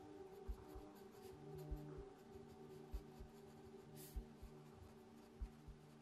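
Mechanical pencil scratching faintly on sketchbook paper in short strokes, with a few soft low knocks.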